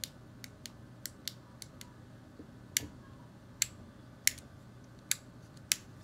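Buttons on a handheld fidget pad being pressed, giving a series of sharp clicks. About seven lighter, quicker clicks come in the first two seconds, then five louder single clicks roughly every three-quarters of a second.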